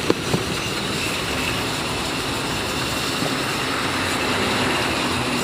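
Car-wash pressure washer running steadily: a constant motor hum under a hiss of water spray.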